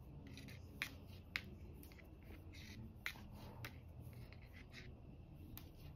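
Faint knitting sounds: steel-tipped circular knitting needles clicking together at irregular intervals and yarn rubbing as a row of knit stitches is worked.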